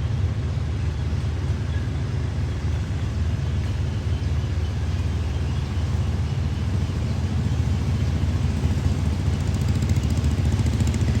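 Tracked rice combine harvesters' diesel engines running with a steady low rumble as the machines drive along, with a fast, even rattle growing louder near the end.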